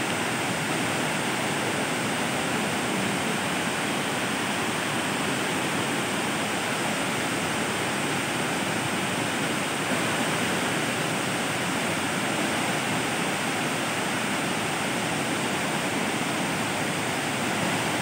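Steady rush of a wide waterfall cascading down stepped rock ledges.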